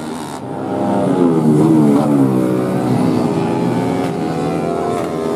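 Racing 150cc four-stroke underbone motorcycle engine at high revs going by, its note rising and then dropping about two seconds in.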